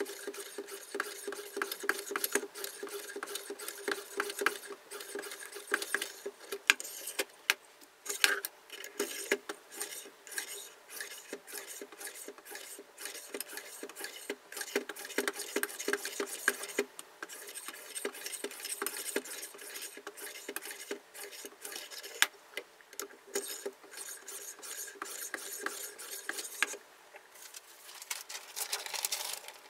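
Diamond sharpening stone of a KMFS Rival guided sharpener scraping along a steel knife blade in quick repeated strokes, with light clicks and taps. The strokes stop about 27 seconds in.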